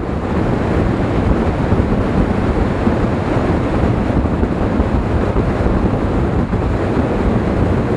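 Wind buffeting the microphone over the rush of a heavy sea, heard from a ferry out on the open ocean in high swell: a steady, rough rumble.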